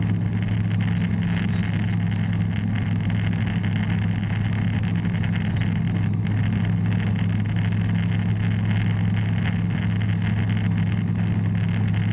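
Bristell light aircraft's piston engine and propeller droning steadily in flight, with no change in pitch.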